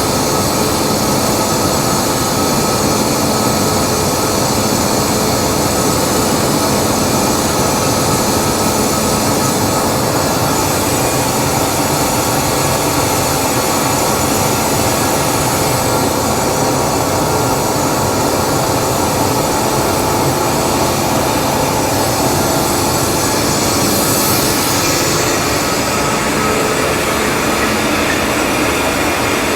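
A 250 hp two-stage rotary screw air compressor running steadily under test, a loud even mechanical drone with a steady whine in it. Near the end there is a brief rise in high-pitched hiss.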